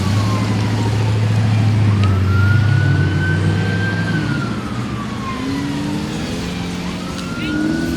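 Police siren in a slow wail: the pitch falls at the start, rises about two seconds in, falls again around the middle and rises once more near the end. Underneath it a vehicle engine drones low and steady, strongest in the first half.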